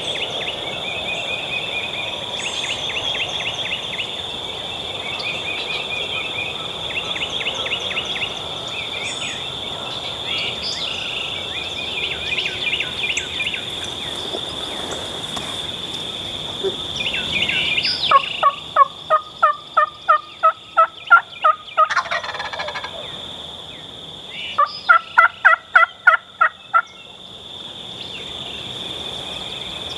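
Turkey yelping in two runs of evenly spaced notes, about four a second: about a dozen notes two-thirds of the way in, then about nine more a few seconds later. Before the yelps there is a steady high drone of insects with small bird chirps.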